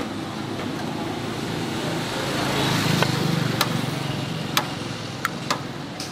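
A road vehicle passing close by: engine and road noise build to a peak about halfway through, then fade. Several sharp metal clinks of a ladle against a steel pot come in the second half.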